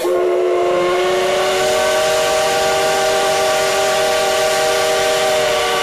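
Steam whistle of the C58 363 steam locomotive blowing one long, loud blast of several tones sounding together over a steam hiss. It starts abruptly, rises slightly in pitch in its first second, then holds steady for about six seconds.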